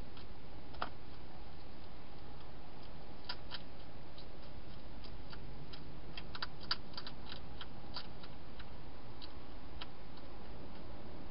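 European hedgehog eating from a bowl inside a plastic feeding box: irregular sharp clicks and crunches of chewing, thickest in the middle, over a steady hiss.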